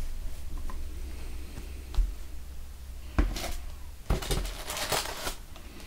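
Hands handling the contents of a cardboard box. There is a soft knock about two seconds in, then tissue paper and cloth rustle in short spells from about three seconds in.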